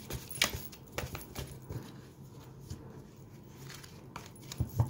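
A deck of tarot cards being shuffled by hand: soft, irregular slaps and clicks of cards against each other, with a louder pair of knocks near the end as the deck halves come together.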